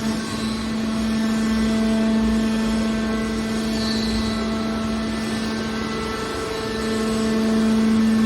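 Hydraulic scrap-metal baler running, its pump and motor giving a steady, even hum.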